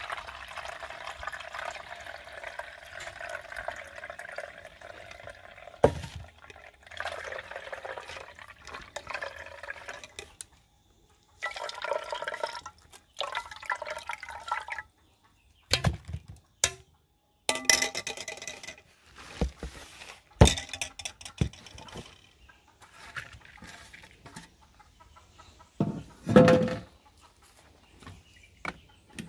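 Coconut milk pouring and trickling through a strainer into a metal pot, a steady splashing for the first several seconds, then in broken spells. Sharp knocks from the metal pots come now and then, the loudest near the end.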